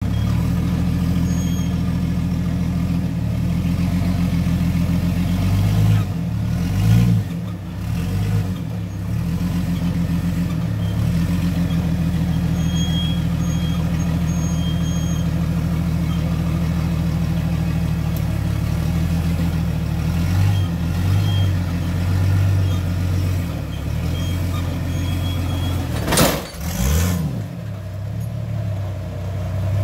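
Jeep Cherokee XJ rock buggy's engine running low and steady as it crawls over a rock ledge, with a few short bursts of revving. Near the end comes a loud bang as the front end comes down hard on the rock, the hit that damages the front grille.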